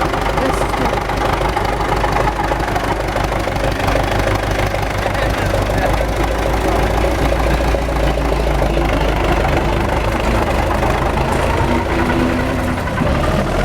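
MTZ tractor's diesel engine running steadily, with the drivetrain humming. The owner puts the hum down to failed 212 bearings in the gearbox's creeper (reduction gear).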